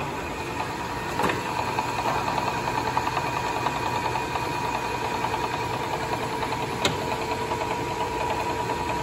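Kingston HD-2690 lathe's geared headstock running in high range with no load, the chuck spinning free: a steady mechanical hum with a faint rapid ticking from the gearing. Two sharper clicks come about a second in and about seven seconds in. The owners put the slight tick in high range down to gear backlash when the spindle runs free without load.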